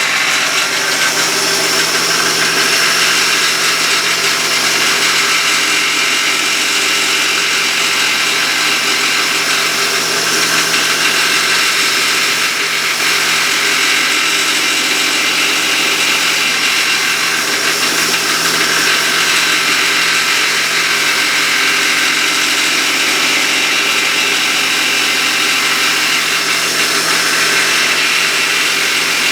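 A machine running steadily with a low hum and a hiss over it, even in level throughout, as from a power tool or shop machine during fretboard sanding.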